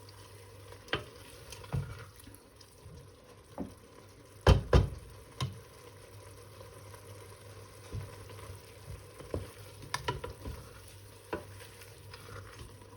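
Beef mince being stir-fried with spices in a pot: a spoon scraping and knocking against the pot every second or so over a faint sizzle, the loudest a double knock about four and a half seconds in.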